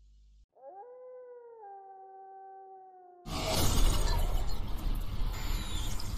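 Logo sound effect: a single long wolf howl that dips slightly in pitch partway through, then a loud burst of glitchy, static-like noise from about three seconds in.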